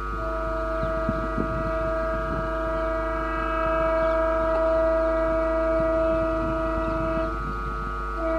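Indian Railways electric locomotive sounding a long, steady blast on its air horn as the train approaches. It is a chord of several notes, and the lower notes drop out for about a second near the end while the higher ones carry on. A low rumble from the train sits underneath.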